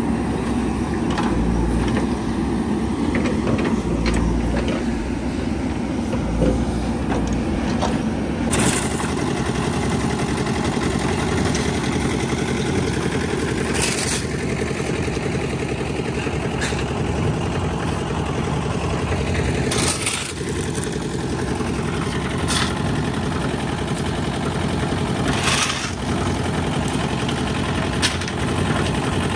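An engine running steadily, with a few brief, sharp noises over it at intervals.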